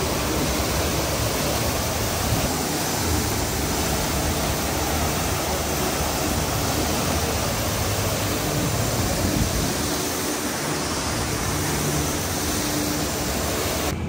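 Man-made waterfall cascading down terraced rockwork into a pool: a steady, loud rush of falling water.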